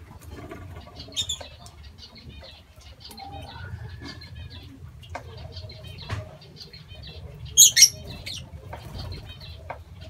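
A flock of lovebirds feeding, with many short, high chirps and twitters throughout and wings flapping now and then. About eight seconds in, two loud shrill calls stand out above the chatter.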